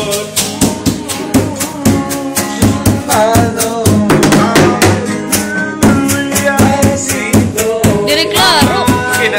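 Improvised drumming: a jar beaten with a broomstick and a stick, keeping a quick, regular beat along with music and a singing voice.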